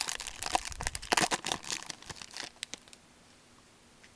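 A hockey card pack wrapper being torn open and crinkled by hand, a dense run of crackling and tearing that stops near the three-second mark.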